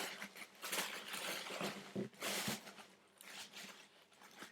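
Paper packaging rustling and crinkling in short irregular bursts as items are unwrapped and handled, dying down over the last second or so.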